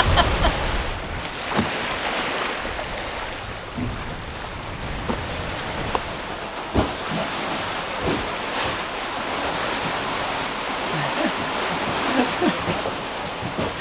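Steady rush of wind and sea water around a sailboat under way, with a few soft knocks.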